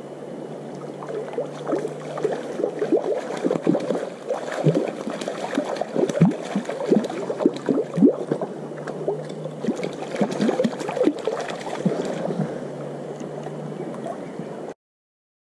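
A hooked wild brown trout splashing and thrashing at the surface of a shallow stream as it is played on a light fly rod: a run of irregular splashes and gurgles, busiest from about a second in until near the end, over the steady run of the water. The sound stops abruptly near the end.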